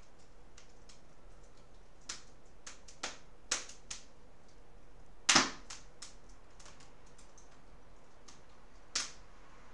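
Pencil tip tapping on paper against a hard desk as small marks are drawn: a few scattered sharp clicks, with one louder knock about five seconds in.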